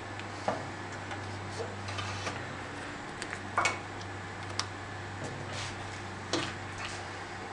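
Scattered light clicks and taps as hands work a rubber tire onto the cast wheel of a Craftsman 12-inch bandsaw and move the wheel, seating the tire so it isn't bunched up. The taps are irregular, with the sharpest about three and a half and six and a half seconds in, over a steady low hum.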